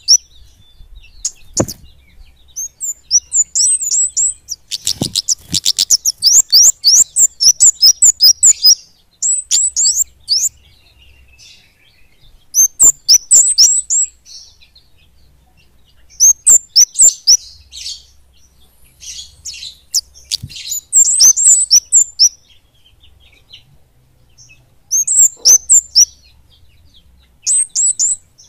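Flowerpeckers (kemade) singing: rapid runs of very high-pitched, sharp chirps packed close together, in bursts of one to four seconds with short pauses between. The longest and densest burst comes about five seconds in.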